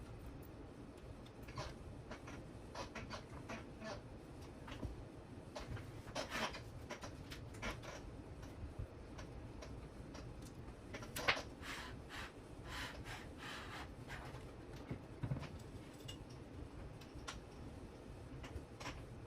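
Scattered light clicks and brief rustles of hands handling wires and small parts on an RC helicopter frame, with one sharper click about eleven seconds in.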